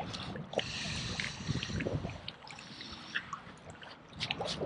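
Choppy, wind-driven lake water lapping and splashing in small irregular splashes, with wind rumbling on the microphone.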